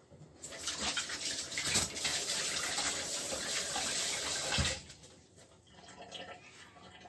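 Kitchen tap running into the sink for about four seconds, then shut off suddenly, with a light knock as it stops.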